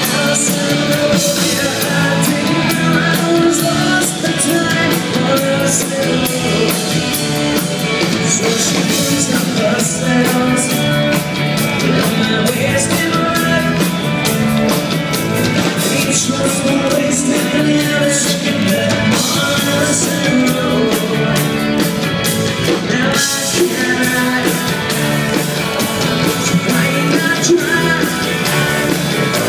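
Rock band playing live: electric guitars, bass and drums, with a lead singer.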